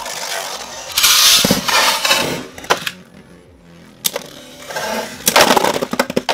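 Beyblade Burst spinning tops in a plastic stadium. About a second in comes a loud whirring rush as a second top is launched in. Then come sharp plastic clacks as the tops strike each other, and a rapid clatter near the end as Luinor L3 bursts Genesis Valtryek V3.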